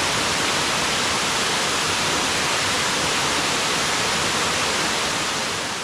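Waterfall rushing in a steady roar of falling water, fading out near the end.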